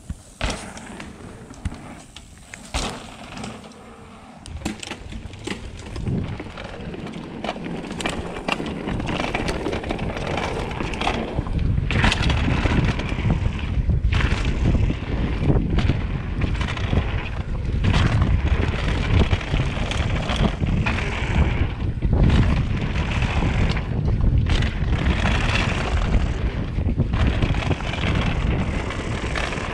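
Mountain bike ridden fast down a dirt singletrack: wind buffeting the camera's microphone, with tyre rumble and the bike rattling over the ground, growing much louder about ten seconds in. Before that, quieter sounds with a few sharp knocks.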